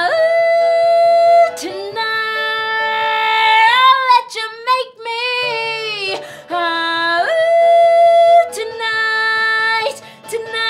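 A woman singing long, loud held notes, each lasting a second or more, with short breaks between phrases. About four seconds in, the pitch wavers before a brief broken stretch.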